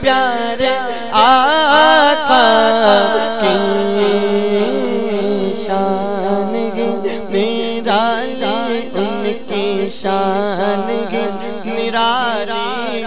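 A man's voice singing a naat through a microphone, in long ornamented phrases that glide up and down, over a steady low hum.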